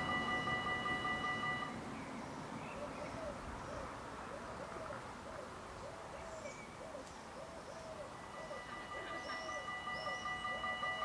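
Level crossing warning bells ringing a steady electronic tone stop about two seconds in and start again about eight seconds in. Through the gap and on past the restart, a bird coos over and over in a regular rhythm.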